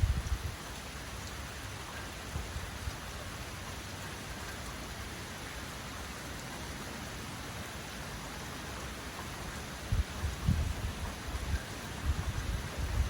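Heavy rain falling with a steady, even hiss. Gusts of wind add low rumbling surges at the very start and again from about ten seconds in.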